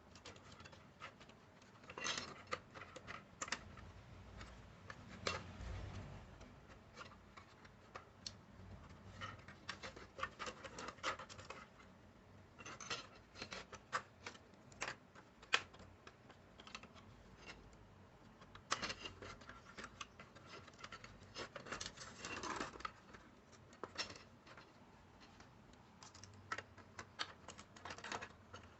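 Irregular scratching, scraping and small clicks and taps of hand work on small parts, coming in busy spells with short quieter gaps.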